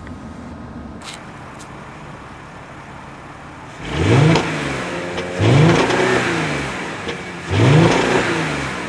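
2009 Audi A4's 3.2-litre V6 engine idling, then revved three times. Each rev rises sharply in pitch and falls back to idle.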